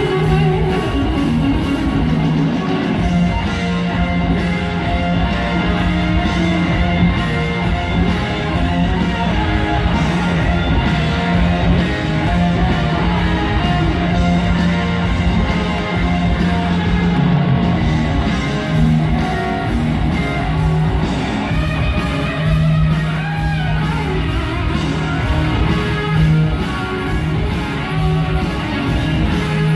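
Live rock band playing loud, with several electric guitars over drums, heard from on the stage.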